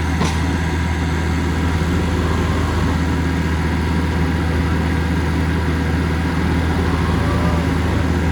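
Heavy diesel engine of the bulldozer or the tractor running steadily at a constant speed, with a brief sharp click just after the start.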